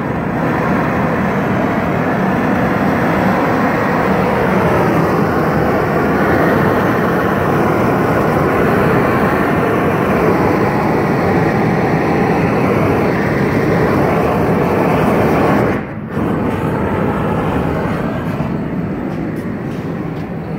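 Large hose-fed gas torch burning with an open blue flame, a loud steady rushing hiss as it heats a bronze casting for a patina. The sound dips for a moment about sixteen seconds in, then carries on.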